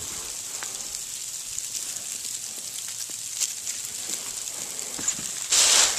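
Faint crackling rustle of dry fallen leaves as a dog noses and steps through them, over a steady hiss. A loud brief rush of noise comes near the end.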